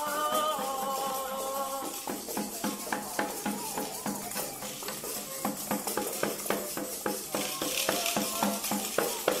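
Experimental instrumental music played by a school pupils' ensemble: held notes die away about two seconds in and give way to quick, irregular struck notes, with a rattle shaking near the end.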